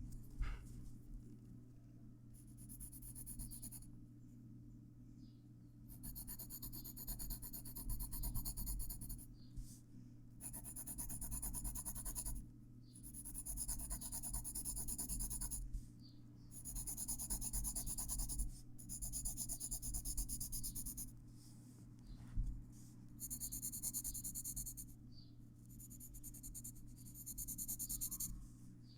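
Graphite pencil scratching on paper in shading strokes, coming in stretches of one to three seconds with short pauses between, over a steady low hum.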